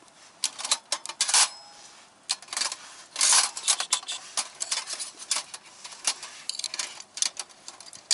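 Quick clinks and clatters of metal camp-grill parts and gear being handled, many sharp knocks in close succession, with a brief lull about two seconds in.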